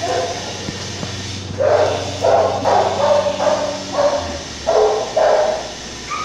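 Dog barking in a series of about eight short barks that start about a second and a half in and stop shortly before the end, over a low steady hum.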